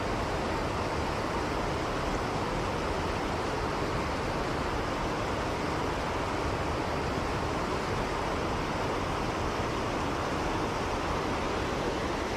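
Mountain stream water rushing steadily over rocks, an even, unbroken hiss.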